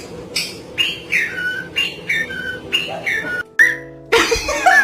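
A parrot whistling the same short falling two-note phrase over and over, about twice a second, over low background music. A louder, noisier burst comes near the end.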